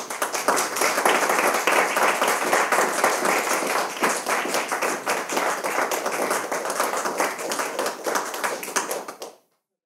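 Audience applauding, many hands clapping steadily, then dying down and cutting off abruptly near the end.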